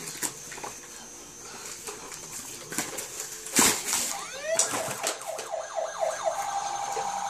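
Battery-powered children's toy playing electronic siren-like sound effects: a sharp knock about three and a half seconds in, then a run of rising sweeps that settles into a fast warbling tone near the end.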